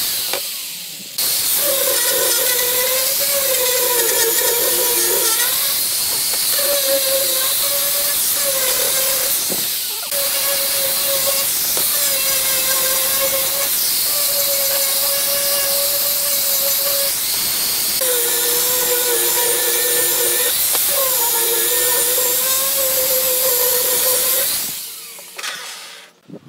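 Angle grinder with a sanding disc running and sanding curved pieces of wood: a steady motor whine over a loud hiss, the whine wavering in pitch as the disc presses into the wood. The sound drops out about a second in and again around ten seconds, then dies away near the end.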